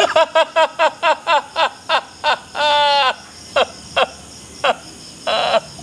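A man sobbing hard in grief: a fast run of short, gasping sobs that slows after about two seconds, broken by a drawn-out wail, then a few more sobs and another cry near the end.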